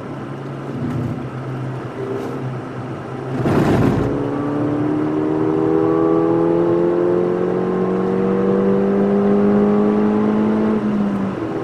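Ford Fiesta ST's turbocharged 1.6-litre four-cylinder engine heard from inside the cabin, pulling hard on track. After a short loud burst of noise about three and a half seconds in, the engine note rises steadily in pitch for about seven seconds, then falls away near the end.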